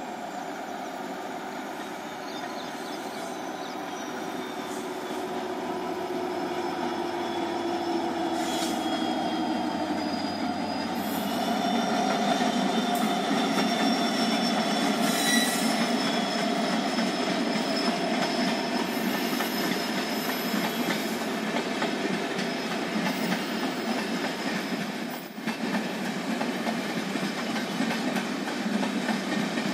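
Diesel-hauled passenger express train passing: the locomotive's engine grows louder over the first dozen seconds with a slowly falling whine, then the steady clatter and rumble of the coaches' wheels rolling by on the rails.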